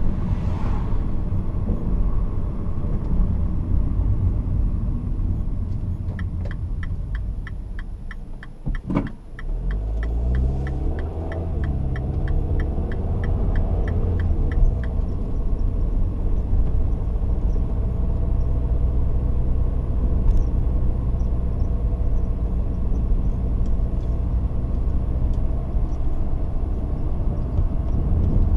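Car driving with a steady low rumble of engine and road. About six seconds in, a turn signal starts ticking, roughly three clicks a second, and stops about nine seconds later. Near the middle the rumble dips briefly, then the engine rises in pitch as the car speeds up again.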